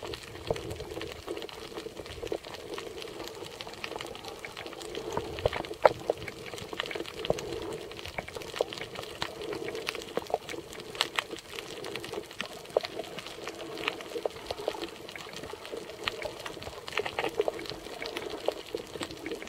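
Underwater ambient sound picked up by a snorkeler's camera held beneath the surface: a steady watery noise with many scattered sharp clicks and crackles.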